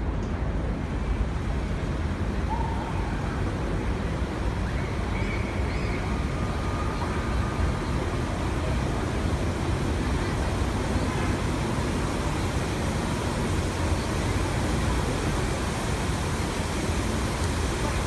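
Steady rushing hiss of the Lincoln Center Revson Fountain's water jets spraying and splashing back into the basin, with a low rumble underneath.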